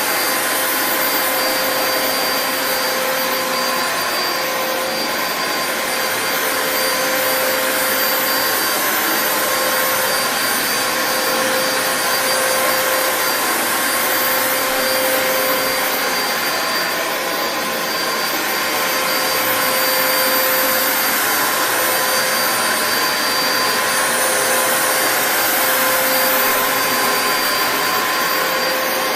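2002 Dyson DC07 Animal upright bagless vacuum cleaner running steadily: a motor whine held at a few fixed pitches over the rush of air.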